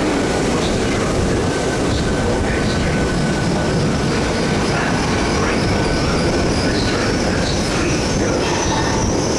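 Two coupled Class 800 IET trains running along the station line with a steady rumble of wheels on rail. A high-pitched squeal joins in about six seconds in and grows stronger toward the end.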